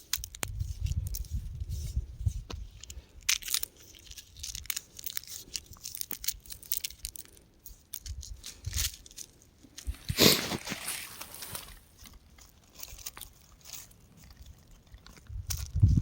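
Rocks crumbling and being crushed: a stream of small crackles and crunches, with a louder grinding crunch about ten seconds in.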